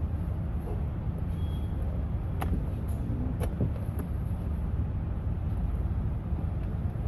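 Light clicks and knocks of a plastic door trim panel being lifted off and its wiring connectors unplugged, four sharp clicks in the middle, over a steady low rumble.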